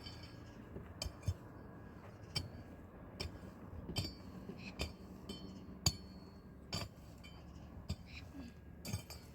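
Glass or china clinking again and again: sharp, separate taps, some with a short high ring, coming irregularly about once a second.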